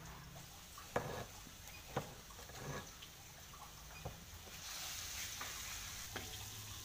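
Chili paste and sliced onion frying in oil in a wok, stirred with a wooden spatula that knocks and scrapes a few times, about a second apart. The sizzle grows louder about two-thirds of the way in.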